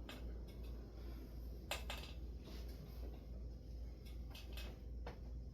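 Craftmade Decorative ceiling fan running, with a steady low rumble of moving air and a few short clicks about two seconds in and near the end.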